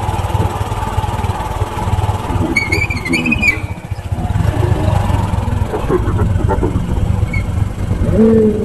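Motorcycle engine running steadily while being ridden, with a short high warbling sound about three seconds in.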